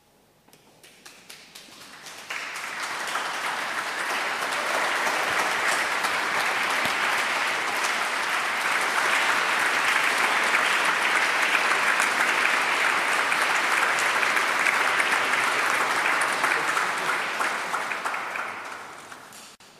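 Audience applauding: a few scattered claps at first, swelling within about two seconds into full, steady applause that slowly dies away near the end.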